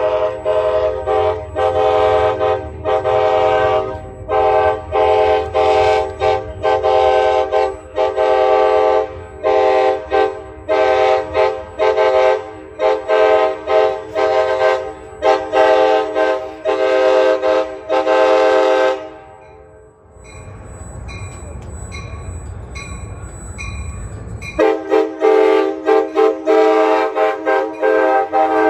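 A locomotive's multi-note air horn is blown in short rhythmic blasts to play a tune. At about 19 s the horn stops and only a low rumble is left, and at about 25 s the blasts start again.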